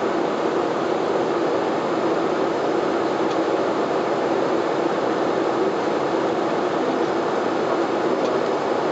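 Steady noise inside the cockpit of a Bombardier DHC-8-400 (Dash 8 Q400) turboprop airliner on approach: its two Pratt & Whitney PW150A turboprop engines, propellers and airflow, an even noise with no changes.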